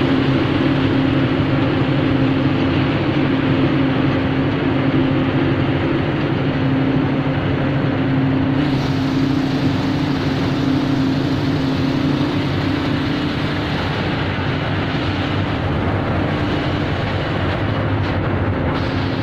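BS-1000 copper cable granulator and separator plant running: a loud, steady mechanical drone with a constant low hum.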